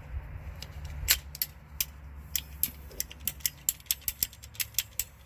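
PEX pipe cutter snipping through rubber fuel hose: a quick run of sharp clicks, several a second, starting about a second in.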